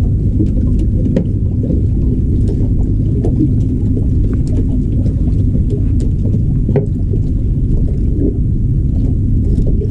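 Boat engine running steadily, a low rumble with an even hum, with faint small clicks scattered through it.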